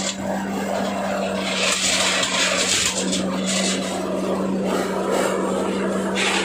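Areca nut husking machine running, driven by its 8 hp diesel engine: a steady hum under a rushing, rattling noise that swells and drops as the dried nuts are beaten in the husking drum.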